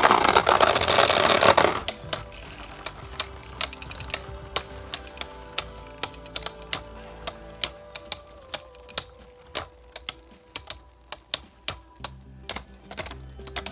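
Two 3D-printed Beyblade spinning tops battling in a stadium: a loud grinding clash for the first two seconds, then a run of sharp clicks, about two to three a second, as they keep knocking into each other. Background music plays throughout.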